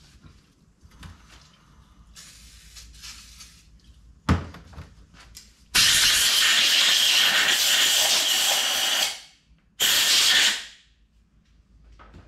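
Faint handling of metal parts, a single sharp knock about four seconds in, then two loud hissing blasts of a pressurized jet, one of about three seconds and a shorter one, as a TH350 transmission front pump is blown clean.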